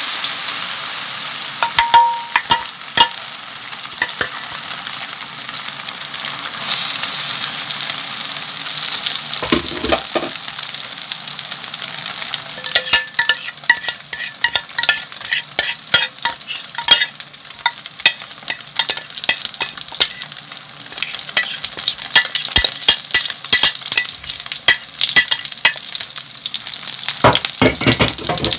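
Oil sizzling in a frying pan: a steady hiss with many sharp crackles and pops.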